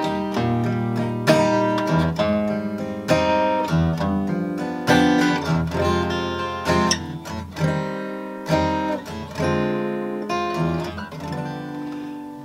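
Acoustic guitar played solo: a slow song intro of strummed chords, a fresh strum about once a second, each chord left ringing.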